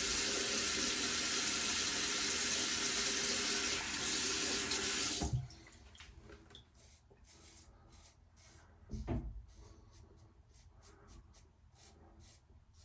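A tap runs steadily into a sink and is shut off about five seconds in. Faint short scraping strokes follow, like a safety razor on stubble, with a single low thump about nine seconds in.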